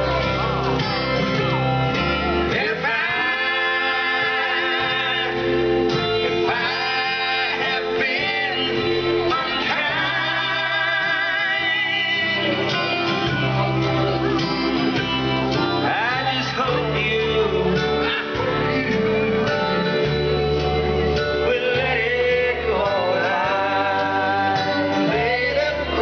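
Country song with a male singer and guitars, played over a loudspeaker.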